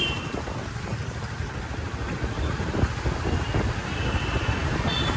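Wind rumbling on the microphone over traffic noise while travelling, with a few short, high vehicle horn beeps in the second half.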